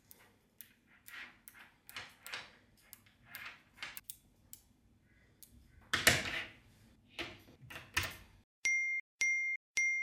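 Small magnetic balls clicking and snapping together as they are pressed into a flat hexagonal plate, with irregular light clicks and a louder clack about six seconds in. Near the end come three short, identical electronic dings, evenly spaced with dead silence between them.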